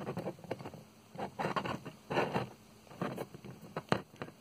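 Handling noise from fingers holding a small plastic toy figurine up against the phone: irregular rubbing and brushing close to the microphone, with one sharp tap a little before the end.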